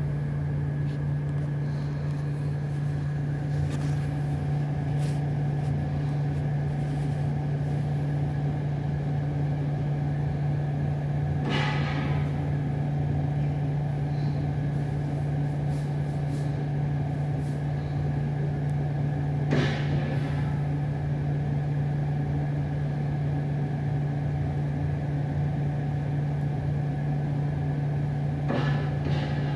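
A steady low mechanical hum with three brief knocks about eight or nine seconds apart. The knocks are the kind of banging from a neighbouring unit that the recording was made to capture.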